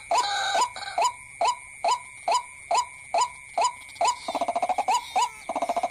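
White-breasted waterhen calls: a short falling note repeated a little over twice a second, broken twice near the end by a quick stuttering run of notes, over a steady high whine.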